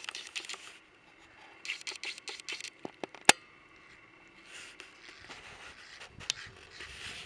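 Handling noise from a Nikon D3100 and its AF-S 55-200 mm VR II zoom lens, picked up by the camera's own microphone: bursts of rapid scratchy clicking, one sharp loud click about three seconds in, then a softer rubbing sound in the last few seconds as the lens is zoomed in.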